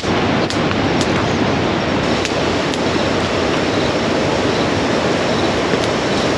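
Steady rush of ocean surf breaking, with a few sharp pops from a wood campfire crackling.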